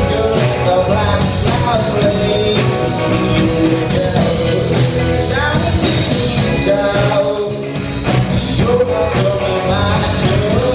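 A rock band playing a song with drums, guitar and sung vocals.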